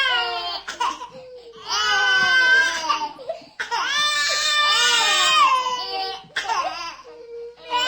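Baby crying in a string of high-pitched wails with short pauses for breath between them, the longest wails lasting over two seconds.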